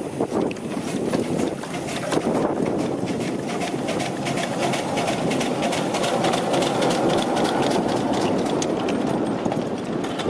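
Coal-fired miniature live-steam locomotive chuffing as it hauls the train, a fast even beat of exhaust puffs over the running rumble of wheels on the rails.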